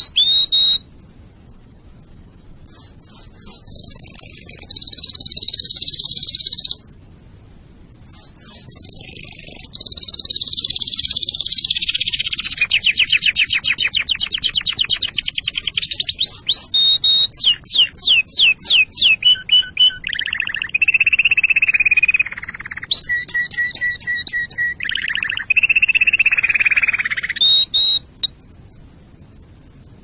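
Domestic canary singing a long song of rapid high trills and rolling repeated notes, phrase after phrase, with short breaks about a second in, near eight seconds and near the end.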